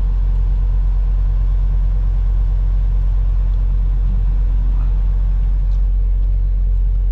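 Steady low drone of a semi-truck's diesel engine and tyres, heard inside the cab as it rolls along in slow traffic.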